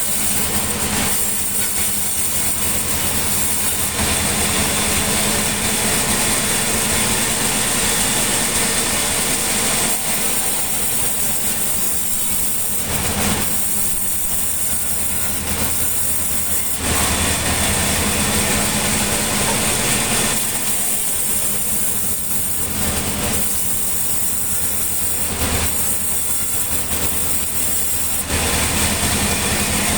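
Sawmill machinery cutting mahogany timber: a steady low engine drone and a constant high whine under a rushing sawing noise that swells and eases every few seconds.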